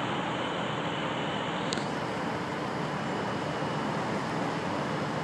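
Steady engine and street noise from a heavy rotator wrecker's diesel engine running at a truck recovery, with a faint click about two seconds in.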